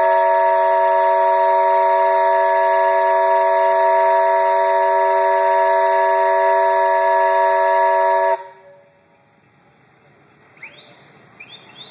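Steam whistle blowing one long steady blast, several pitches sounding together as a chord over a hiss of steam. It cuts off abruptly after about eight seconds.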